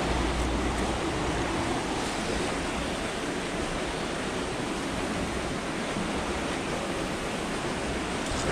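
Steady, even rush of fast-flowing canal water.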